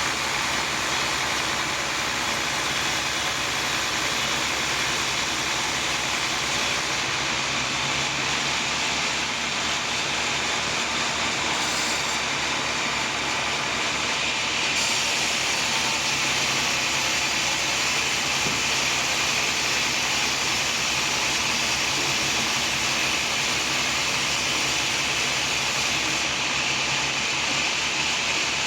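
Sawmill machinery running steadily: a dense, even machine noise that grows slightly louder about halfway through.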